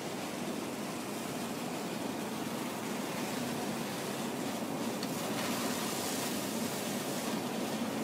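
Fire engine running its pump at a fire, a steady noisy drone with a hiss that brightens a little about five seconds in.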